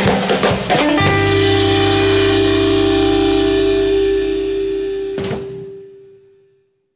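An instrumental guitar band ends a track: after about a second of busy playing, a final chord is held and rings out. A short sharp hit comes about five seconds in, and the chord fades away to silence.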